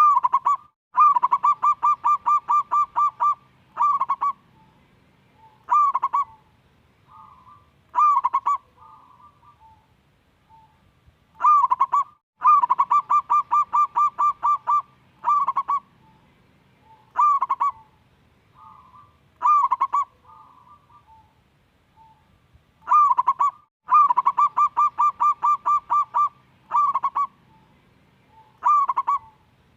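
Zebra dove (perkutut) singing. Three song bouts come about eleven seconds apart, each a fast run of about a dozen ringing coos followed by three or four single coos a couple of seconds apart, with soft quiet coos in between.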